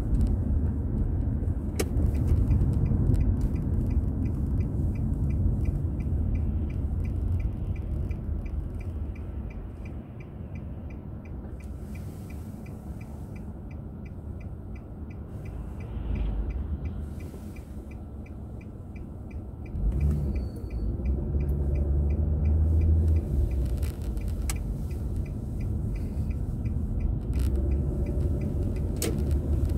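Car road and engine rumble heard from inside the car, fading as the car slows and waits about ten seconds in, then swelling again as it pulls away about twenty seconds in. Through most of it a turn-signal indicator ticks at an even pace.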